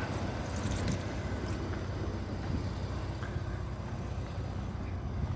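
Steady low rumble of motor vehicles running, with a few faint clicks in the first second and a half.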